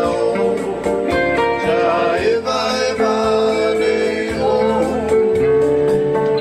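Music: a Samoan song, sung with instrumental accompaniment.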